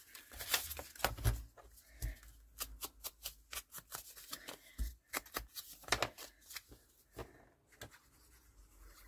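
Paper scraps being handled for a collage: a string of short rustles, crackles and taps, busiest in the middle and thinning out toward the end.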